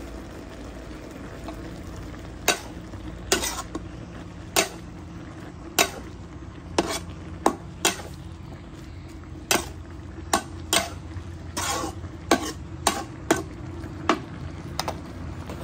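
Metal ladle stirring pork and cabbage in a frying pan, knocking and scraping against the pan about once a second, irregularly and sometimes in quick pairs, over a steady sizzle of frying.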